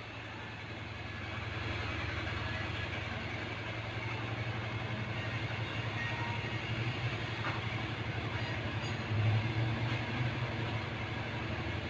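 Kitten purring close to the microphone: a steady low, finely pulsing rumble that swells a little about nine seconds in.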